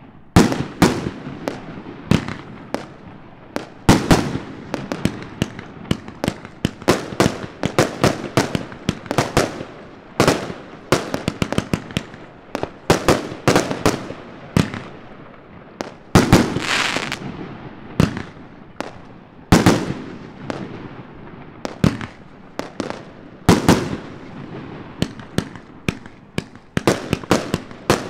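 Svea Trippel Decker compound firework cake firing a rapid, continuous barrage: sharp bangs several times a second over a running crackle, with a longer hissing stretch about two-thirds of the way through.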